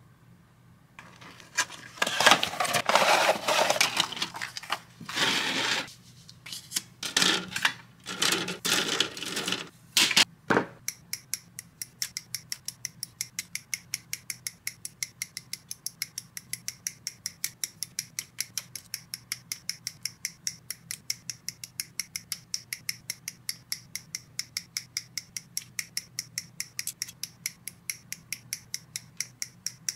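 Plastic model kit sprues and packaging rustling and clattering as they are handled for about ten seconds. Then a long run of sharp, evenly spaced clicks, about three to four a second.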